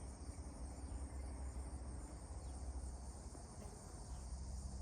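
Cicadas singing, a steady high buzz that does not let up.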